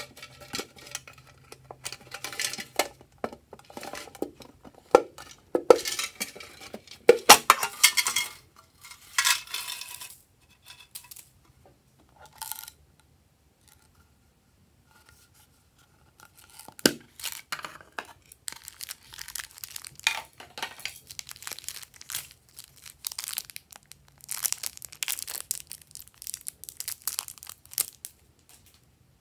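Hands handling and opening small plastic cosmetic cases and their packaging: scattered clicks, scrapes and crinkling, tearing rustles. They pause briefly midway, then a single sharp click leads into more rustling and clicking.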